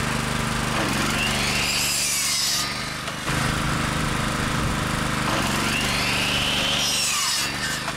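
Electric mitre saw running and cutting through timber, its blade pitch sagging under load during the cuts. The motor eases off briefly about three seconds in, then runs again and stops just before the end.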